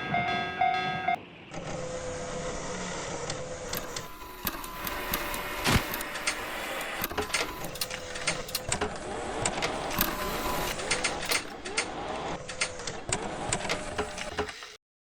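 A horn-like tone that cuts off about a second in, then a busy mechanical clattering full of irregular clicks and knocks over a faint steady hum, which stops suddenly near the end.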